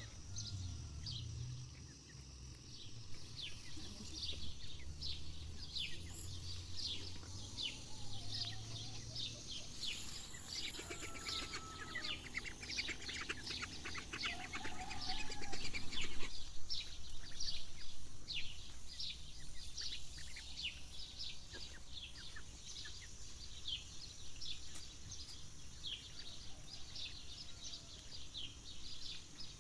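Young domestic ducks feeding from a dish, with high bird chirps repeating throughout. Around the middle a louder spell of fast dabbling comes in, then stops abruptly.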